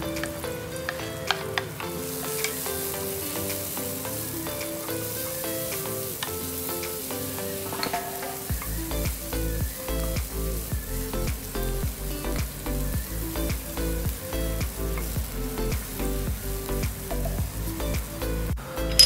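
Shallots, garlic and chilli sizzling in hot oil in a nonstick wok, with a wooden spatula clicking and scraping against the pan as it stirs. Background music plays underneath, and a steady beat comes in about halfway through.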